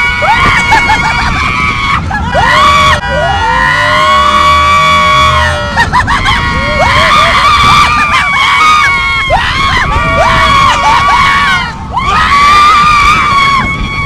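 Several riders on an amusement-park thrill ride screaming in long, held cries that rise and fall, over a steady low rumble.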